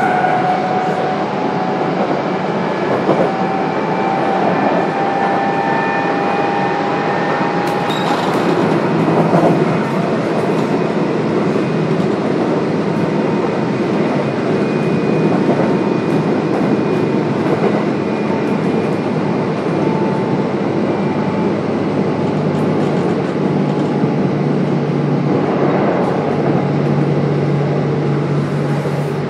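Kintetsu 1031 series electric train running at speed, with a steady rumble of wheels on rail. Faint steady whine tones from the Hitachi GTO-VVVF traction inverter and motors sit over it. A brief sharp rail noise comes about eight seconds in.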